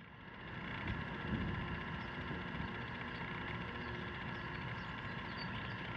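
Steady background machine hum, even and unchanging, with a set of faint steady tones.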